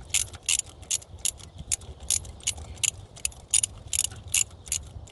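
Ratchet wrench clicking in quick, uneven strokes, about three to four clicks a second, as it turns a spark plug socket to run a new spark plug into the cylinder head.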